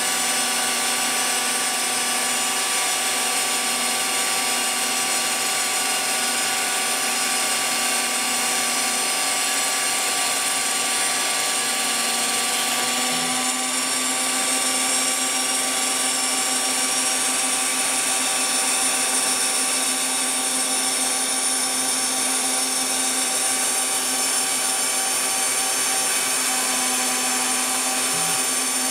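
Phlatprinter CNC mill's spindle running steadily as its bit cuts through fibreglass sheet: a steady high whine over a hiss of cutting. A lower tone shifts in pitch about halfway through and again near the end.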